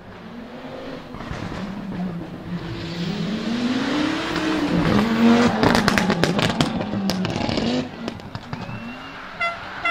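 Audi Quattro Group 4 rally car's turbocharged five-cylinder engine revving hard as the car approaches and passes close by on gravel. Its pitch rises and falls through the gears, with a rapid string of sharp bangs from the anti-lag at the loudest point. The sound drops off abruptly near the end as the car pulls away.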